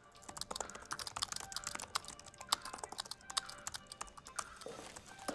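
Typing on a MacBook laptop keyboard: quick, irregular key clicks.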